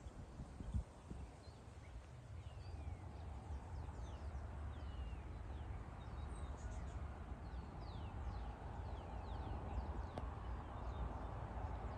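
A hi-rail track inspection truck running along the rail line toward the crossing, its low rumble of engine and wheels growing steadily louder. Birds call with many short falling whistles over it.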